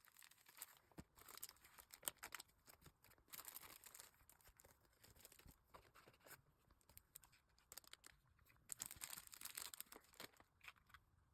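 Faint rustling and crinkling of packaging being handled, with scattered light clicks and two short busier bursts of rustling, about three seconds in and near the end.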